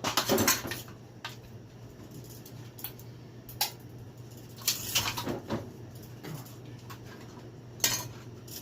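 Scattered clattering knocks of metal and plastic parts as a ceiling fan is broken apart, with a cluster of knocks about halfway through and a sharp one near the end. The fan is holding up: more resilient than expected.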